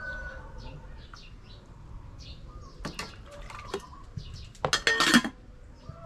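Small birds chirping again and again, while kitchen pots or utensils clatter a few times, loudest in a short burst about five seconds in.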